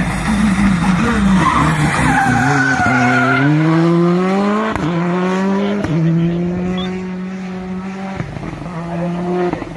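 Rally car taking a tight hairpin: a ragged, scrabbling start with tyre squeal as it turns, then the engine pulls hard out of the bend with climbing revs broken by quick upshifts, about a second apart, before settling into a steadier drone.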